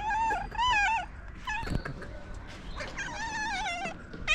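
A cat's wavering, trilling cries. There are two calls in the first second, a short one about a second and a half in, and a longer quavering call near the end.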